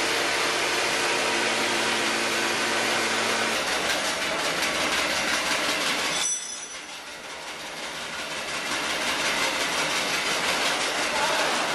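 Chili powder milling machinery running: a loud, steady mechanical hiss with a low hum. The hum stops about three and a half seconds in, and the sound drops sharply about six seconds in, then builds back up.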